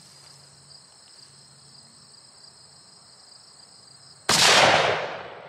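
.458 Winchester Magnum rifle firing a single shot about four seconds in: one sharp, very loud blast that dies away over about a second. A steady high insect buzz runs beneath it.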